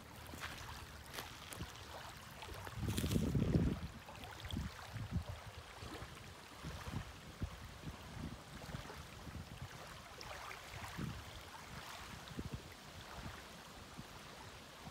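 Small waves lapping on a gravel lakeshore, with gusts of wind buffeting the microphone in low rumbles, the strongest about three seconds in.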